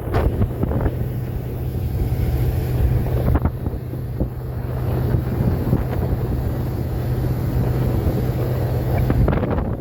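Boat engine running with a steady low hum, wind buffeting the microphone.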